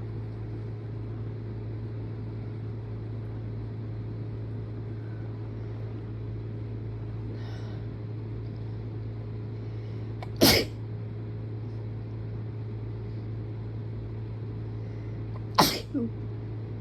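A person sneezing hard twice, about five seconds apart, with a short tail after the second sneeze, over a steady low hum.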